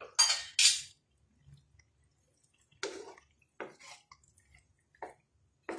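Wooden spatula stirring macaroni and prawns in a milky sauce in a frying pan: wet, squelching stirring in short, irregular bursts, with two louder bursts near the start.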